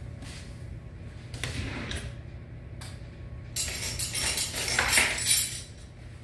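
Kitchen handling noise: a few light knocks, then about two seconds of loud scraping and rustling of utensils and containers.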